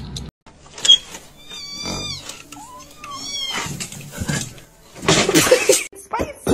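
Domestic cat meowing twice, two drawn-out calls that bend in pitch, followed a little before the end by a loud noisy burst.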